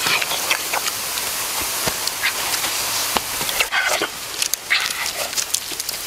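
Sauce and fat dripping from two spit-roasted chickens sizzle on hot embers: a steady hiss with scattered sharp crackles.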